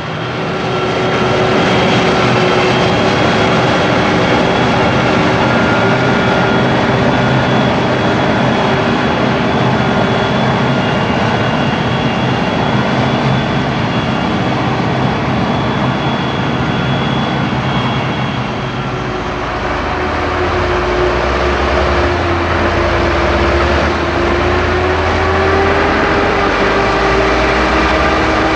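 Diesel harvest machinery running steadily: a forage harvester working maize with tractors and trailers, a steady whine over a heavy engine drone. The low rumble changes about two-thirds of the way in.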